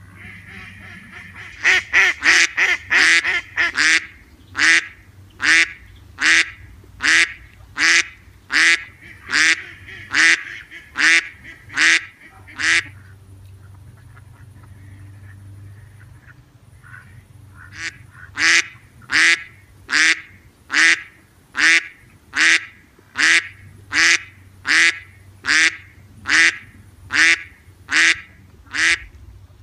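Duck quacking: a quick cluster of calls near the start, then a steady series of quacks about one every 0.8 seconds, broken by a pause of a few seconds in the middle before the series resumes.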